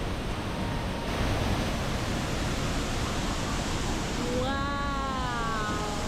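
Steady rushing of a waterfall. A little after four seconds in, a short call slides down in pitch over it for about a second and a half.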